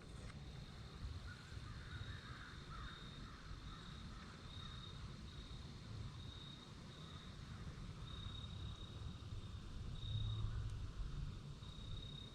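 Wind rumbling on the microphone in open woods, swelling about ten seconds in, with a faint high note repeating roughly once a second.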